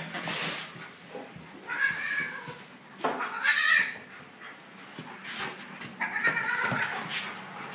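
A cat and a German Shepherd tussling on a tiled floor, with three short high-pitched animal cries, the middle one loudest.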